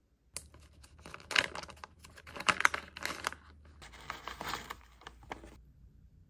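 Plastic mask pouch crinkling and rustling as a face mask is pulled out of it, in quick uneven crackles with the sharpest ones a little past one and two and a half seconds in; it stops about five and a half seconds in.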